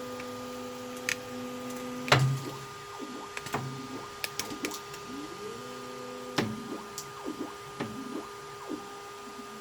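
Creality K2 Plus 3D printer homing: its stepper motors whine in steady tones that stop and start, with a short rising glide as an axis speeds up, over a steady fan hum. Sharp knocks come about two seconds in and again about six and a half seconds in, typical of sensorless homing where the axes bump the frame.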